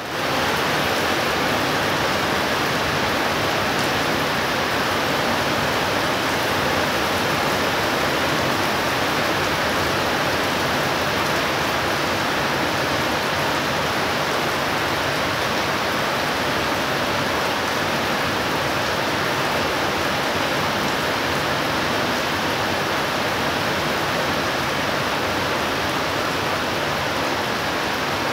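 Heavy rain pouring down in an intense thunderstorm downpour, a steady, even hiss that does not let up.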